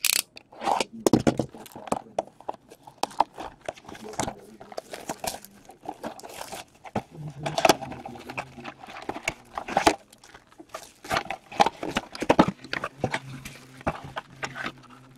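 Cardboard hockey-card blaster box being torn open by hand and its packs pulled out: irregular tearing, scraping and crinkling of cardboard and plastic wrap.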